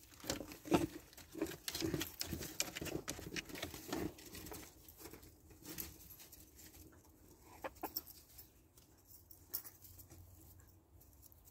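Chickens making low clucks among quick pecking taps. The sounds are busiest for the first few seconds, then thin out to a few scattered taps.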